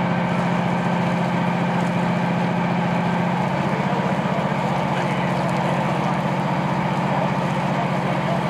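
Airport fire truck's diesel engine running steadily, a low drone with a fast even pulse that eases slightly about three and a half seconds in.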